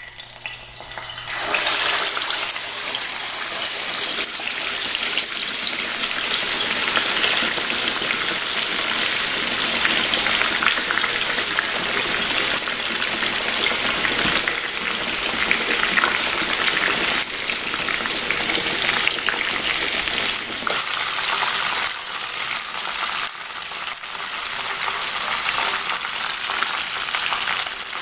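Whole masala-marinated chicken frying in hot oil: a steady, dense sizzle that starts about a second in.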